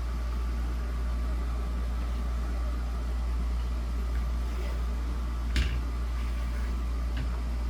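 Steady low hum with a sharp knock about five and a half seconds in and a fainter click near the end.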